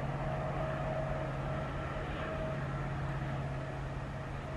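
Diesel locomotive engine on an approaching train, a steady low drone with a fainter higher tone above it.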